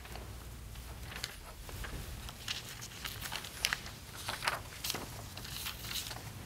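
Sheets of paper rustling and crackling in short, scattered bursts as documents are handed over and handled, over steady low room tone.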